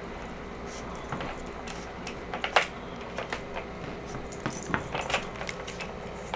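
Hard plastic dog puzzle feeder clicking and rattling in scattered irregular taps as a puppy noses and paws at its sliding covers and bone pegs, with metal tags on her collar jingling; the sharpest click comes just past halfway.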